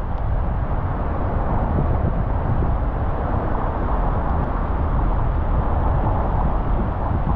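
Car driving on a rain-wet road: a steady hiss of tyres and road noise over a low rumble from the car.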